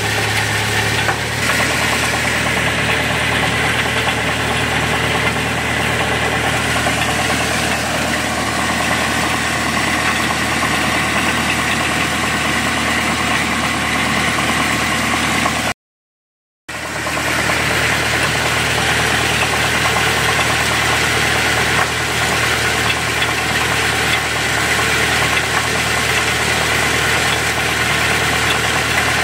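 Tractor-driven AGM WC X5G wood chipper running steadily, the tractor engine and the chipper's spinning rotor making one even drone. The sound cuts out completely for under a second about halfway through, then resumes unchanged.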